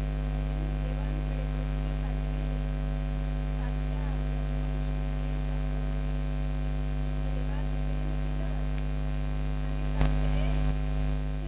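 Steady electrical mains hum, a low buzzing drone from the sound system, with a brief louder burst of noise about ten seconds in.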